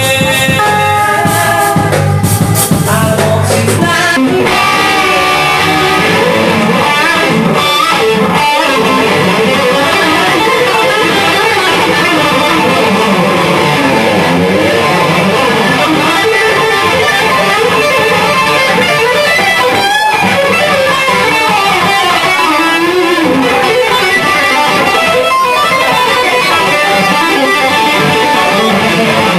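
Rock band playing live, with an electric guitar to the fore whose lead line bends up and down in pitch over the band.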